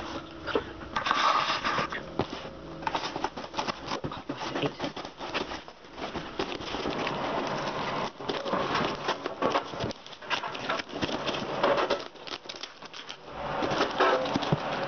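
Cardboard parcel being opened and handled by hand: irregular crackling, rustling and scraping of cardboard and packing.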